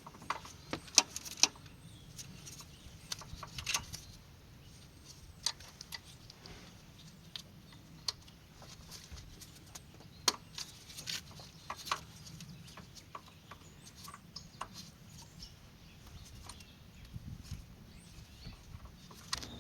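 Sparse, faint clicks and taps of hand work on the truck's throttle body, spread irregularly through the stretch.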